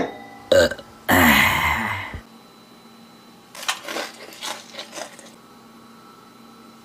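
A person's loud burp, about a second long and falling in pitch, after a drink of beer; it follows a sharp clack and a short grunt. A scatter of faint clicks and rustles follows as edamame pods are handled.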